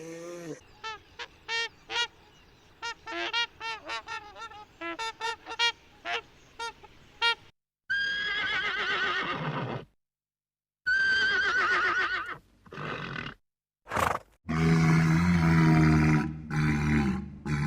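A run of different animal calls. First comes a long series of short, high chirps. Then come two wavering, whinny-like calls about two seconds long, and near the end a loud, low, drawn-out call.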